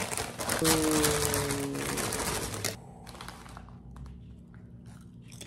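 Plastic snack bag of Ruffles potato chips crinkling loudly as a hand rummages inside it for a chip, stopping suddenly near the middle, followed by faint light ticks. A brief held note, falling slightly in pitch, sounds over the crinkling about a second in.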